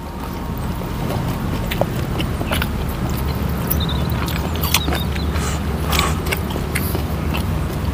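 Close-miked eating sounds: chewing of dried fish and raw greens, with scattered wet lip smacks and clicks. A steady low rumble runs underneath.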